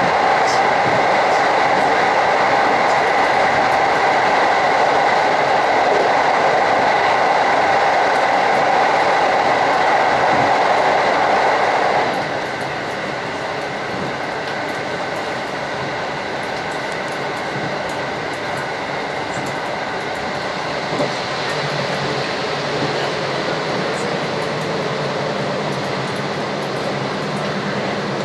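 Running noise of a JR electric commuter train heard from inside the passenger car: a steady rolling rush with a humming tone. About twelve seconds in, the noise drops suddenly to a lower, quieter level.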